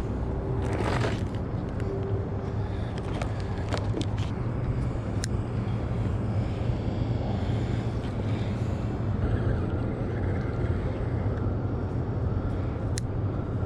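Steady low outdoor rumble, with a few sharp clicks from a spinning rod and reel being cast and retrieved.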